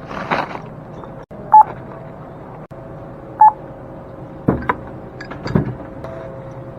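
Self-checkout barcode scanner beeping as items are scanned: two short single-pitch beeps about two seconds apart, over a steady hum. A few short knocks and rattles come near the end.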